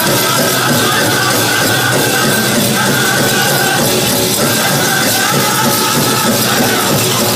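Powwow drum group singing in high, held voices over a steady beat on a large shared drum, the sung phrases stepping downward.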